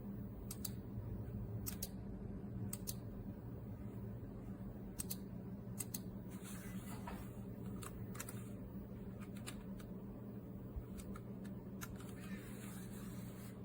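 Faint, irregular clicks of a wireless gaming mouse's buttons, about a dozen spread unevenly, over a steady low hum.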